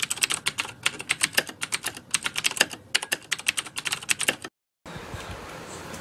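Computer keyboard typing sound effect: quick clicking keystrokes, several a second in uneven runs, cutting off suddenly about four and a half seconds in.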